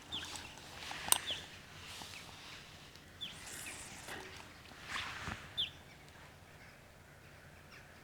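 A few short, high bird chirps outdoors, mixed with soft rustling and one sharp click about a second in.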